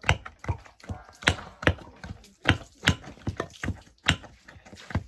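Rhythmic pounding of batuk batter by hand: a steady run of sharp knocks, about two to three a second.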